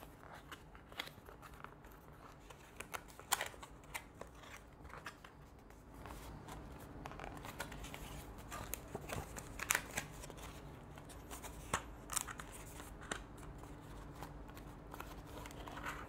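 Stiff cardboard being handled and folded as a poster standee is fitted together: scattered scrapes, taps and rustles. Under it runs the steady hum of a room air conditioner, which grows louder about six seconds in.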